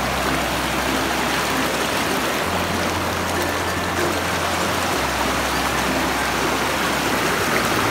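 Shallow rocky river rushing over boulders and gravel in small rapids: a steady rush of water.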